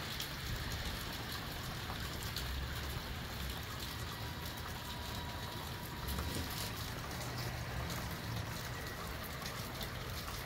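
Steady rain shower with gusty wind: a constant hiss of rain with scattered drop ticks, over a low rumble of wind that rises and falls.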